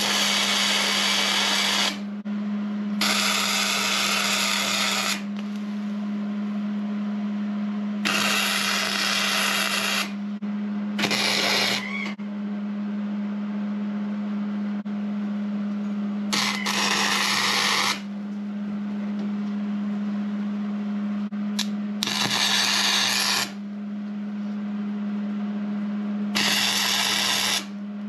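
Hobart Handler 210MVP MIG welder running flux-core wire, laying seven short tack welds: each is a crackling buzz of one to two seconds, with pauses between. A steady low hum runs underneath.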